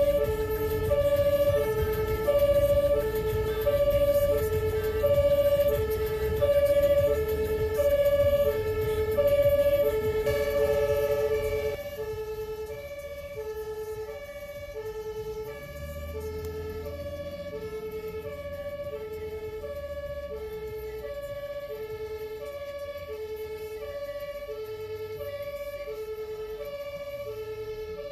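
Ambulance's German two-tone siren (Martinshorn) heard from inside the cab, alternating between a low and a high note about every two-thirds of a second, over the rumble of the vehicle on the motorway. About twelve seconds in, siren and rumble both become quieter and stay even.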